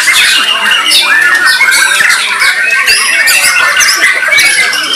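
Many white-rumped shamas singing at once in a contest, a dense, unbroken mix of loud, quick whistles, sweeps and chatters from several birds overlapping.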